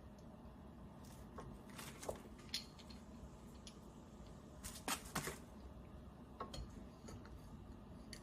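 Light metallic clicks and clinks of coilover parts and hand tools being handled, a few scattered early and a quick cluster about five seconds in.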